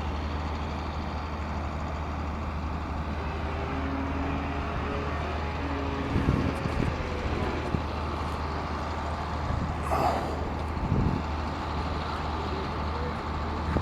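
Radio-controlled Yak 55M model aerobatic plane in flight, its motor droning faintly over a steady low rumble, with a few brief knocks in the second half.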